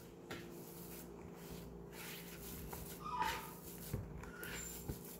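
Hand squeezing and kneading crumbly almond-flour dough in a plastic mixing bowl: soft, irregular squishing and rubbing with small knocks against the bowl.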